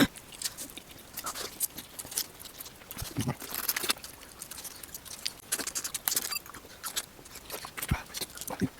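Close-up eating sounds: chewing and crunching, with many short sharp clicks and crackles and a couple of heavier mouth sounds.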